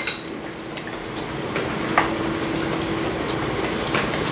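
Hot pot broth boiling steadily in the pot, with a few faint clinks of utensils.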